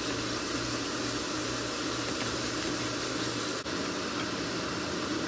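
Squid and vegetables stir-frying in hot oil in a pan, a steady sizzle with a faint low hum beneath it.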